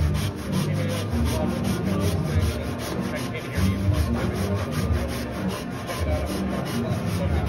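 Japanese pull saw cutting through a thick wooden beam, its teeth rasping in an even rhythm of quick strokes.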